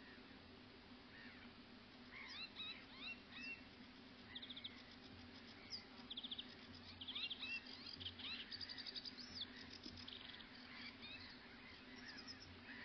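Faint birdsong: small birds singing in short chirps and rapid trills, busiest through the middle, over a low steady hum.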